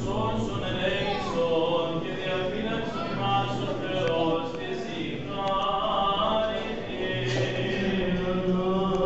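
Orthodox Vespers hymns chanted by voices in church, a gliding melody over long held low notes.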